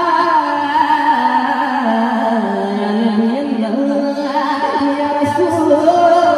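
A man singing a naat through a microphone, drawing out long held notes on a single syllable that step and slide up and down in pitch, with no break.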